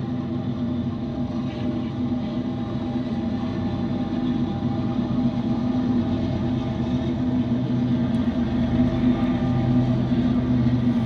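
Diesel locomotives of an intermodal freight train running under power: a steady, low, multi-tone engine drone over a rumble, slowly growing louder.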